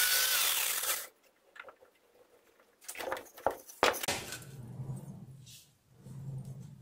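Drill bit cutting a steel part on a metal lathe, with a steady high whine, cuts off sharply about a second in. A few clicks and knocks follow, then a low hum as the lathe chuck turns again.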